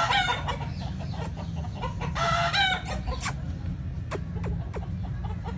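Rooster calling twice, each call lasting under a second, about two seconds apart, followed by a run of short sharp clucks, over a steady low hum.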